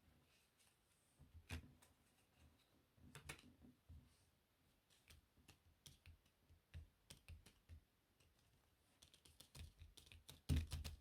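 Playing cards handled close to the microphone: faint, irregular clicks and taps, with a louder cluster of taps near the end.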